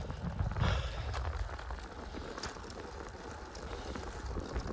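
Steady low wind rumble on the microphone while riding a bicycle along a quiet paved road, with a few faint clicks.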